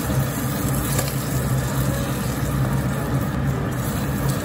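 Pork ribs sizzling in melted rock-sugar caramel in a frying pan, over a steady low hum.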